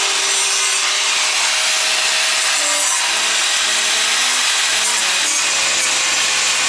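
Electric angle grinder running steadily against steel, grinding the burrs off the edges of a welded square-steel rocket stove.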